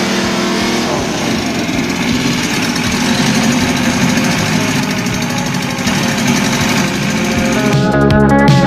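Volkswagen Golf Mk2 engine running with its exhaust disconnected, blowing straight out into the engine bay with a raw, unmuffled, rapidly pulsing sound. Guitar music comes in near the end.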